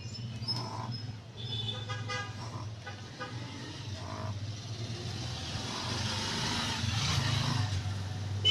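A puppy snoring loudly in its sleep: breathy snores over a steady low hum, with a short whistling tone about two seconds in and a longer snore swelling to a peak near the end.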